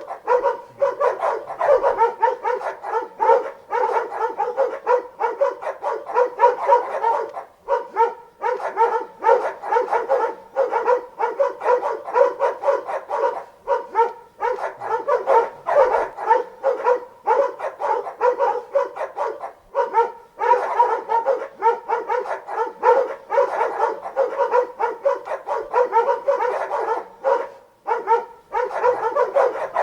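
Several dogs barking nonstop, their barks overlapping into a dense, rapid chorus with only a few brief lulls.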